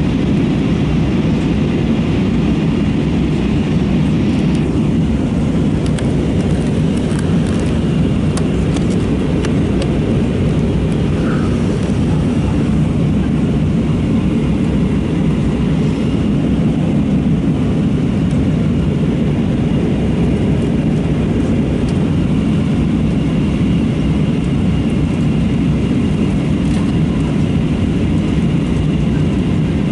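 Steady low drone inside the cabin of an Airbus A320-232 in flight, the noise of its IAE V2500 engines and the air rushing over the fuselage, with a few faint clicks in the cabin.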